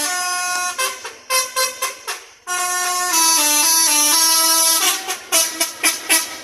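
Indonesian bus "telolet" horn, a set of air horns playing a tune: held notes stepping up and down in pitch. Quick short toots come about a second in and again near the end, with a short pause in the middle.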